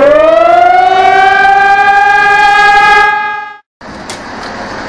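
A siren winds up in pitch and then holds one steady tone for about three seconds, fading out about three and a half seconds in. After a brief gap a steady rushing noise follows.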